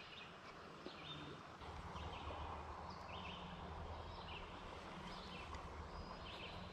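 Faint chirping from a bird, short calls repeated about once a second, over a low steady hum that comes in about one and a half seconds in.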